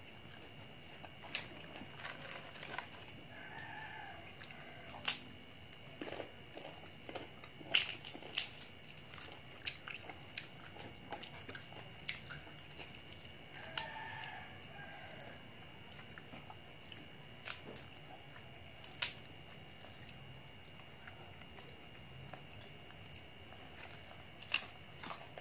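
Raw green mango being bitten and chewed: sharp, crisp crunches every few seconds with quieter chewing in between.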